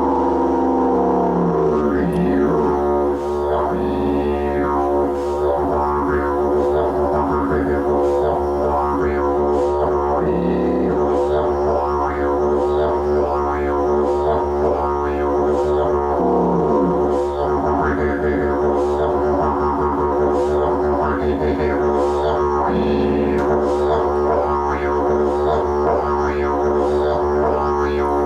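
Didgeridoo played as a continuous low drone with no break for breath, its overtones sweeping up and down every second or two as the player shapes the sound with mouth and tongue.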